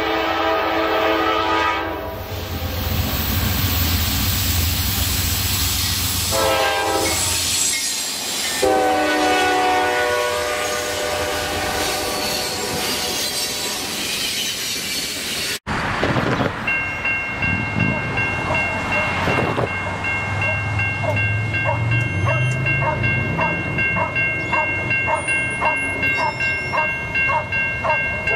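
Diesel freight locomotive horn blowing several blasts, near the start and twice more a few seconds later, over the rumble and clatter of a passing freight train. After a sudden cut, a grade-crossing warning bell rings about twice a second over steady tones as the crossing activates for an approaching train, and a locomotive horn starts up again at the very end.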